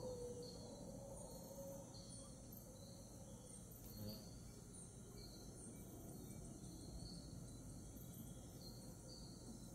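Faint rainforest dawn ambience: short high chirps and trills from insects and birds repeat over a steady low hiss. The low howling of distant mantled howler monkeys trails off in the first couple of seconds.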